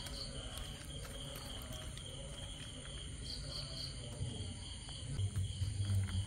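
Faint, steady insect chirring, high-pitched and unbroken, with a low hum coming in about five seconds in.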